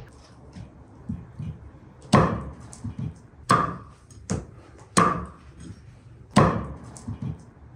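A knife slicing kernels off ears of corn, the blade knocking down onto a wooden cutting board in sharp strokes, about five loud ones at uneven intervals with lighter knocks between them.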